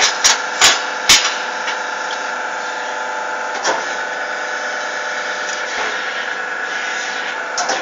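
Hydraulic press brake running: a steady hum with several fixed tones in it. Four sharp metallic clicks or knocks come in the first second or so, and one more comes about halfway through.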